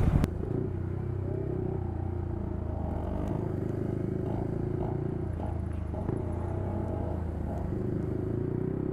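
Motorcycle engine running steadily at idle, a low even hum with no revving.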